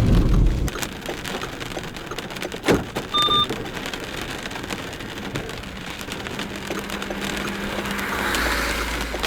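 Steady rain falling and spattering on a surface. A sharp knock comes a few seconds in, followed by a short electronic beep, and a low rumble near the end.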